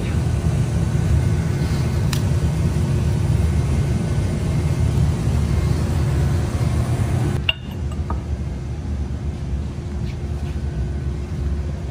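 Steady low rumble of workshop background noise with a few faint light clicks. It changes abruptly and drops a little about seven and a half seconds in.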